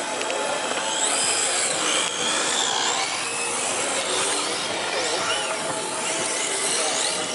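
Radio-controlled drift cars sliding on asphalt: small electric motors whining, rising and falling in pitch with the throttle, over a steady hiss of tyres scrubbing across the pavement.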